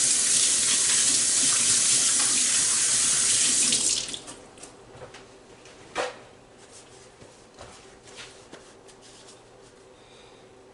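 Kitchen tap running into a sink while hands are washed, shut off about four seconds in. Then faint handling noise and a single sharp click about two seconds later.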